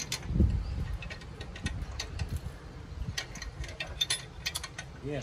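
Irregular small metallic clicks and ticks of hands and a tool working at the fittings under a vintage motorcycle's fuel tank, with a low thump about half a second in.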